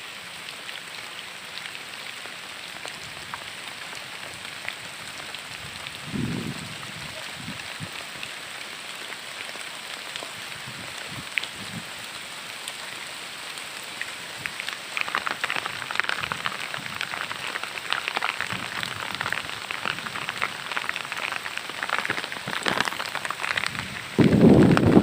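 Steady heavy rain, thickening about halfway through into a denser, louder patter. A brief low rumble comes about a quarter of the way in, and near the end a sudden, much louder low rumble sets in.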